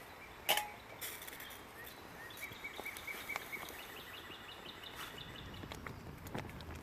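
A songbird calling a quick series of short repeated chirps from about two to five seconds in, over steady outdoor background noise. A sharp click comes about half a second in, and a few lighter taps follow.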